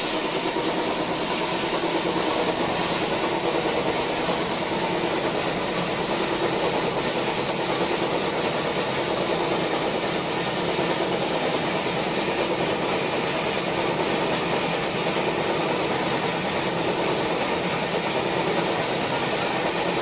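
Horizontal band sawmill running and ripping a log. The steady blade and motor noise carries a constant high whine and does not change.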